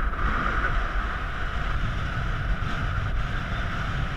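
Wind buffeting the microphone: a steady low rumble with an even hiss over it.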